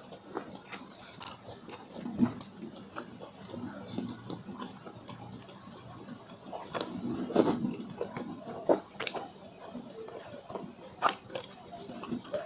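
Close-miked eating sounds: wet chewing and smacking with sharp mouth clicks at an irregular pace, busiest a little past the middle.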